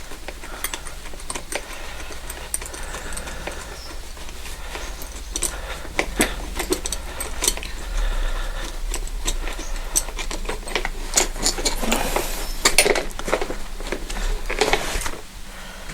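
Hand tools (spanners and sockets) clinking and clicking against metal fittings on a motorcycle, in irregular bursts that grow busier near the end.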